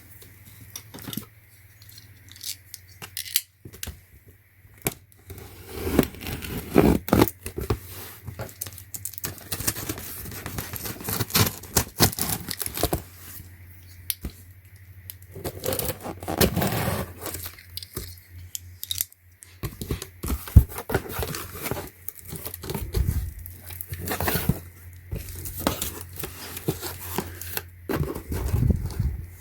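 Cardboard box and plastic packaging of racing seat belts being torn open and handled: tearing and crinkling, with irregular clicks and knocks throughout.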